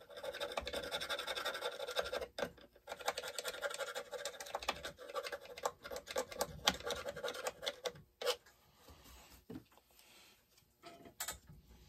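Hands working at a chainsaw's bar mount, with small metal parts scratching and clicking, dense and continuous for the first several seconds, then only a few scattered clicks.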